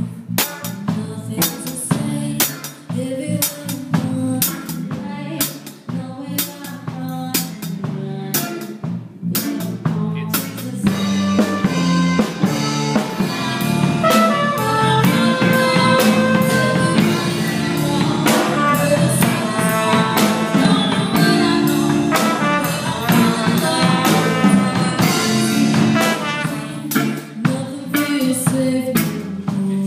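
Small band playing live on stage: drum kit with cymbals on its own at first, then trumpet and electric guitar come in with held notes over the beat about ten seconds in, dropping back to mostly drums near the end.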